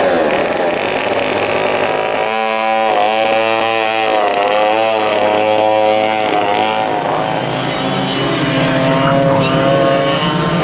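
Vintage racing go-kart engines running at speed, the pitch falling as one kart passes near the start, then another kart's engine, the loudest, rising and falling with the throttle before fading, and a further kart coming through near the end.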